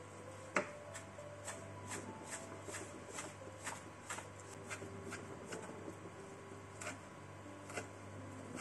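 Chef's knife chopping fresh parsley on a plastic cutting board: a run of sharp taps about two a second, the first one louder.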